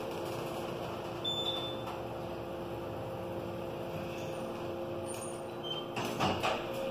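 Elevator car descending, with a steady motor hum holding two steady tones. A short high beep sounds about a second in, and a few clunks come near the end as the car arrives.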